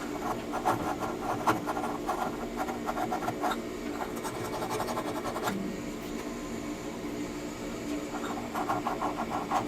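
Quick scraping strokes of a furnace flame sensor rod being rubbed clean, coming in three spurts with pauses between them, over a steady low hum. The sensor has not been cleaned in a while.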